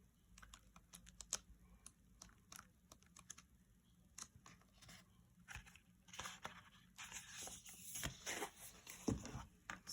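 Faint handling of paper sticker sheets: soft rustling and scattered light clicks, with a longer peeling, tearing-like scrape past the middle as a sticker comes off its backing.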